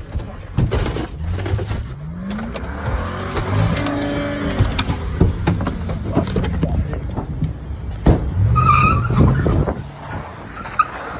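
A car engine revving hard, its pitch climbing about two seconds in, mixed with sharp knocks. Later, tires squeal for about a second.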